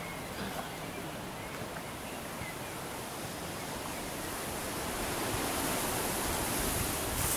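Steady rushing wind noise outdoors, growing a little louder toward the end.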